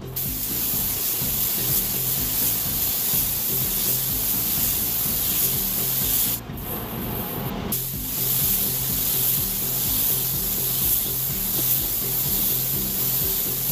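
Gravity-feed paint spray gun hissing steadily as it sprays a coat onto a car hood. The hiss cuts out briefly twice around the middle, where the trigger is let off between passes.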